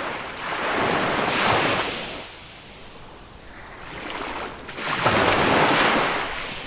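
Small waves of a calm Mediterranean sea breaking and washing up a sandy beach: one surge starting about half a second in and another about five seconds in, with the quieter hiss of the sea between them.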